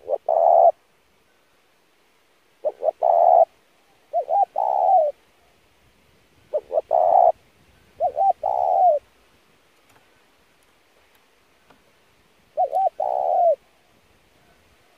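Spotted dove cooing: about six short groups of low coos, each group of a few quick notes ending in a longer coo that falls at its end, with a pause of a few seconds before the last group.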